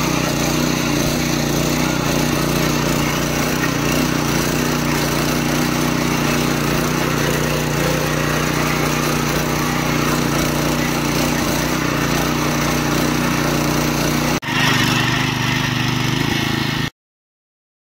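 Mini power tiller's small single-cylinder four-stroke OHV engine running steadily under load as the tiller cultivates the soil. The sound breaks off for an instant about 14 seconds in, resumes, and stops abruptly near the end.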